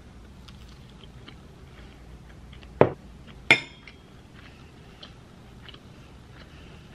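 Cutlery clinking against a plate at a meal, two sharp clinks less than a second apart with a brief ring, and faint small taps of eating between them.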